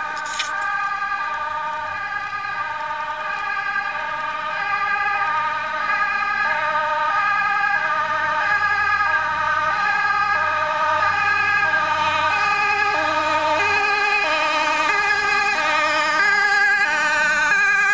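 Fire engine's two-tone siren alternating steadily between a high and a low note, growing louder as the truck approaches, with its engine faintly audible underneath.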